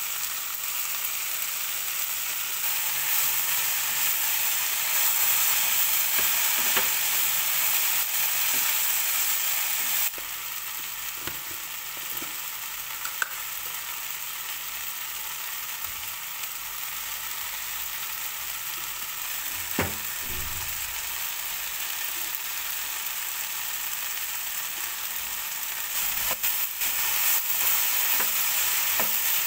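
Chopped okra and onions sizzling steadily as they fry in a nonstick pan, with a light knock or two. Near the end a wooden spatula stirs and scrapes through the pan and the sizzle gets louder.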